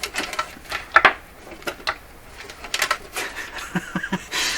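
Irregular knocks, clicks and a brief scrape from a small tube radio's cabinet and chassis being handled and pried at as they are worked apart. The loudest knock comes about a second in.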